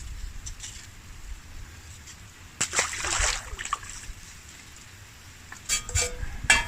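Water sloshing and splashing: one longer splash about three seconds in and a few short splashes near the end, over a low steady rumble.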